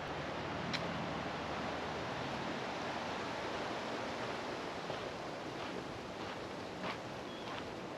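Steady rushing noise of wind through the trees, a little stronger in the first few seconds, with a few faint footsteps on the trail.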